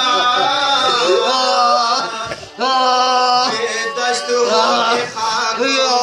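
A man's voice chanting a salaam, a Shia mourning recitation, into a microphone in long, held, wavering melodic lines. There is a brief break for breath a little over two seconds in.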